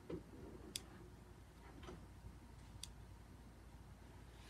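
Near silence with a few faint, irregular clicks from a Springfield SA-35 pistol being handled: its slide shifted slightly with the hammer down and the safety engaged.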